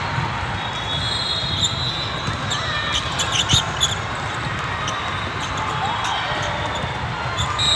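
Basketball game noise in a gym: a ball bouncing on the court against steady crowd noise, with a cluster of sharp hits about three to four seconds in.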